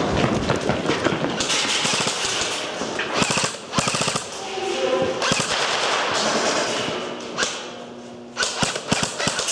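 Airsoft guns firing in rapid strings of shots, with a dense cluster about three seconds in and another near the end.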